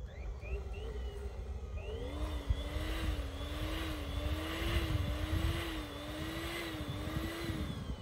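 Cordless electric air pump running as it inflates a large latex balloon, a hum that wavers slowly up and down from about two seconds in until just before the end. Wind rumbles on the microphone.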